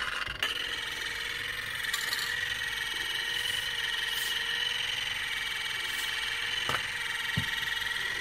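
EBM-papst M4Q045 shaded-pole fan motor running with a steady whine, its lowest tone wavering slightly. It sounds bad, which the owner takes for a worn sleeve bearing. A few short knocks come near the end.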